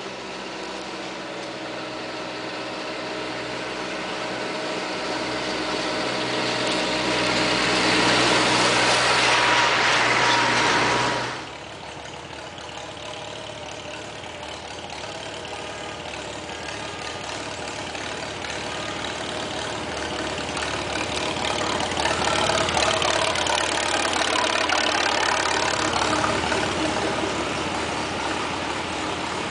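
Farm tractor engines running as tractors drive along the road one after another. The first grows louder and cuts off suddenly about eleven seconds in, then another grows louder and wavers in pitch as it comes close.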